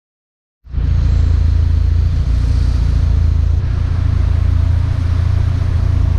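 Renault Mégane Renaultsport's turbocharged 2.0 four-cylinder engine and exhaust running steadily with a deep, loud exhaust note, cutting in abruptly about half a second in.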